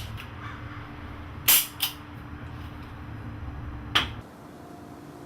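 Revolver clicks, the sound of Russian roulette being played: a loud pair of sharp metallic clicks about a second and a half in, then a single click about four seconds in. A low hum underneath stops just after the last click.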